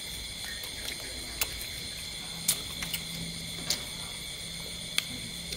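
Steady high chirring of night insects over a faint low hum, with a handful of short, sharp smacks and clicks from people eating with their fingers.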